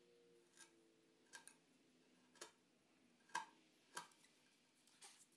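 Wood chisel paring the router-rounded corners of a mortise housing in a timber by hand: faint, sharp ticks at irregular intervals, about one a second, as chips are sliced off.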